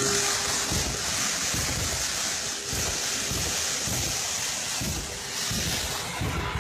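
Wind buffeting the microphone: a steady rushing noise with irregular low gusts.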